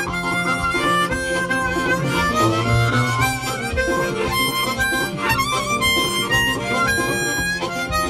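Background music: a bluesy harmonica tune with bending, sliding notes over a guitar accompaniment.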